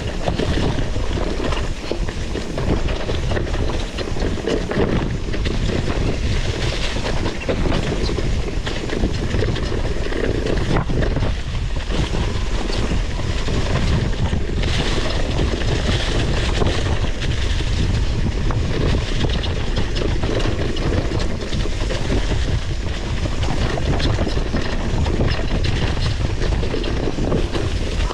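Mountain bike riding down a rough dirt trail: wind rushing over the microphone, tyres rolling over bumpy ground, and the bike's chain and frame rattling constantly.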